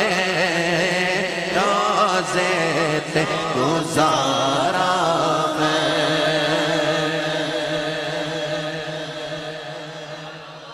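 A man singing a naat, drawing out a long wavering melodic line over a steady held drone. It fades out over the last few seconds.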